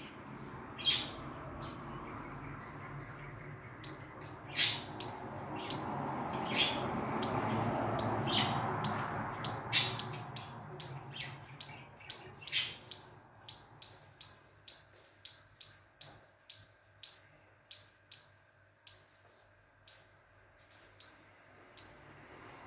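Male Mantella baroni (Baron's mantella) frogs giving their advertisement calls: a long series of short, high chirps, about two a second, starting about four seconds in and thinning out and fading near the end, with a few louder, sharper clicks among the early calls. A low steady hum runs underneath.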